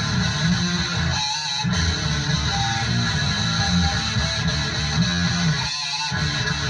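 Heavy metal music with electric guitar over a driving low end. The low end drops out briefly about a second in and again near the end.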